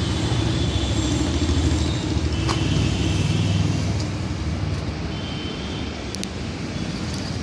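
Steady low rumble of road traffic and running engines, a little louder in the first half, with a few faint high-pitched squeals and clicks.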